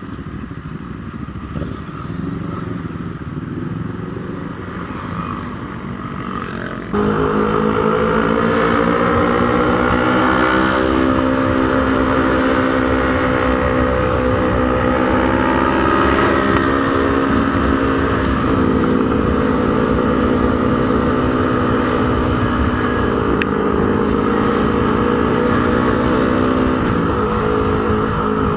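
Riding noise at first, then about seven seconds in a motorcycle engine comes in suddenly and loud. It climbs in pitch as it accelerates, drops at a gear change, climbs again, then runs at a steady cruise with small shifts in pitch.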